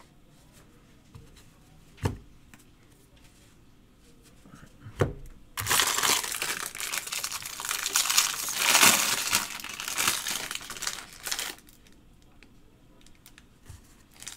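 Foil trading-card pack wrappers crinkling as they are handled, for about six seconds starting about five and a half seconds in, after two light knocks.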